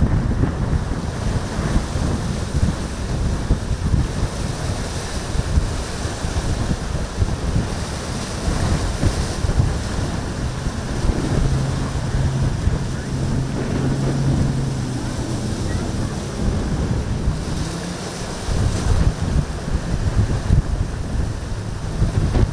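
Strong wind buffeting the microphone over the wash of choppy surf, with a boat engine's steady low hum coming through for a few seconds in the middle.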